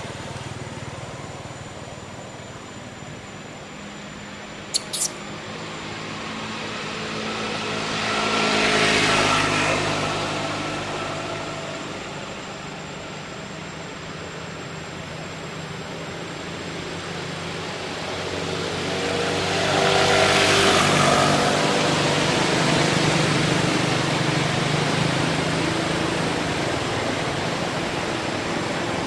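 Traffic noise from motor vehicles over a low steady engine hum, with two vehicles passing, one about nine seconds in and one about twenty seconds in, each swelling and fading. Two sharp clicks sound close together about five seconds in.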